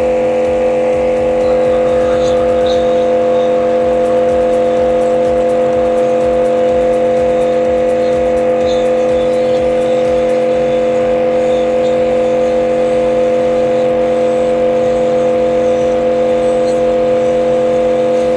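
Benz BZ-8548 high-pressure washer running steadily at full load, blasting water through a 25-degree nozzle at its maximum of about 80 bar. It gives a loud, constant hum at one steady pitch over a spray hiss.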